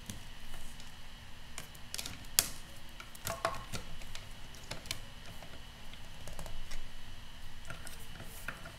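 Hand-cranked die-cutting and embossing machine with a cutting-plate sandwich passing through its rollers: irregular small clicks and ticks from the crank and plates, with one sharp, loud click about two and a half seconds in.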